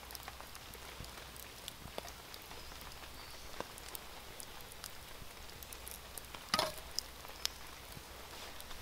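Quiet outdoor ambience: a soft hiss with scattered small ticks and pops, and one louder clatter about six and a half seconds in.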